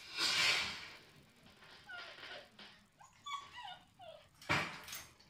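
Australian Shepherd puppies whimpering and yipping: a run of short, high, falling squeaks in the middle. A noisy burst opens the stretch and another brief one comes near the end.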